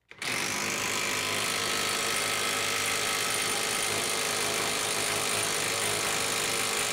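Hyper Tough 20-volt brushless cordless 1/2-inch impact wrench hammering steadily at full trigger against a dyno test fixture during a power-output run. It starts sharply just after the beginning and holds an even, dense rattle.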